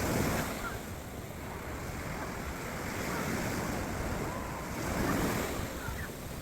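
Rough sea surf breaking on the beach, swelling as waves crash near the start and again about five seconds in, with wind buffeting the microphone.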